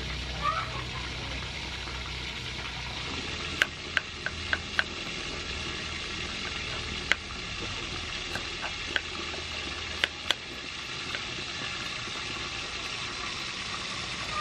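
Knife scraping the skin off ginger root over a wooden cutting board, with sharp taps of the blade on the board, a quick run of about five about four seconds in and a few single ones later, over a steady hiss.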